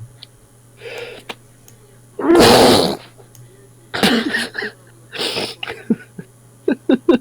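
A man sneezing very loudly: a softer burst about a second in, then one long, very loud sneeze about two seconds in, followed by two shorter loud bursts and a quick run of short sounds near the end.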